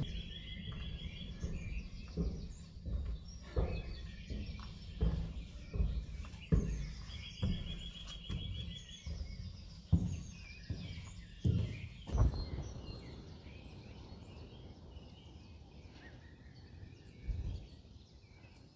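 Walking footsteps at a steady pace, about three steps every two seconds, stopping about twelve seconds in. A bird sings a short, rapid trill of evenly repeated notes twice, and other birds chirp now and then.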